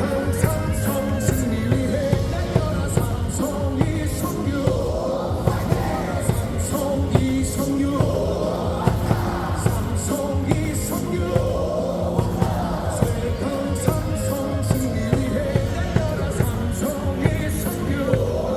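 Stadium cheer song over the loudspeakers, with singing and a steady sharp beat about twice a second.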